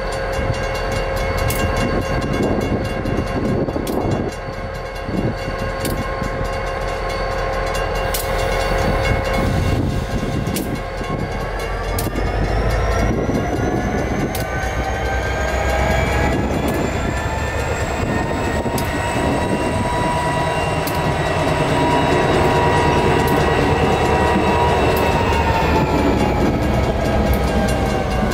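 EMD GP40-2 locomotive's turbocharged 16-cylinder diesel engine working as it pulls through the crossing: its pitch rises a little under halfway through, holds, and eases off near the end. Grade-crossing mechanical bells ring faintly over it.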